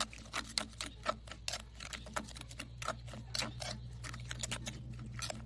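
A spoon stirring chili sauce in a bowl, knocking and scraping against the bowl in quick irregular clicks, several a second, over a low steady hum.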